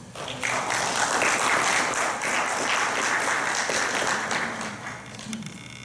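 Audience applauding: many people clapping, starting at once and dying away near the end.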